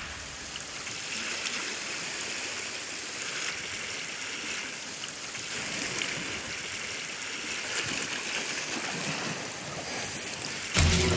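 Sea water washing against a rocky shore: a steady, even hiss of surf. About ten and three-quarter seconds in, a louder sound cuts in.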